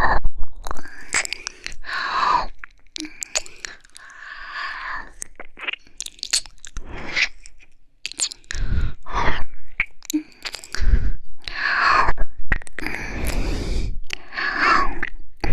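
Close-up wet mouth sounds of slow ear licking and kissing into an ASMR microphone: a stream of sharp smacks and clicks, with breathy exhalations in between.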